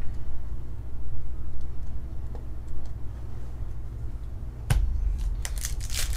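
Foil Pokémon booster-pack wrapper crinkling in the hands, starting with a sharp crackle near the end. Before that, only a low steady rumble.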